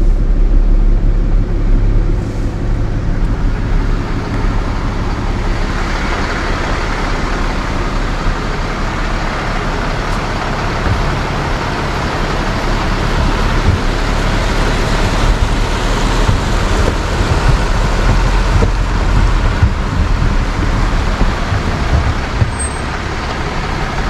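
Flatbed tow truck driving slowly with its engine running steadily over a low hum, and steady tyre and road noise that grows a little after a few seconds.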